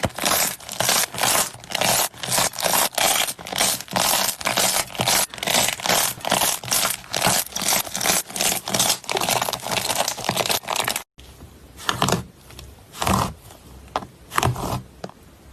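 Slime being pressed and squished, with rapid crackling, scraping strokes about three or four a second. About eleven seconds in the sound cuts off suddenly, then a few separate crackles follow.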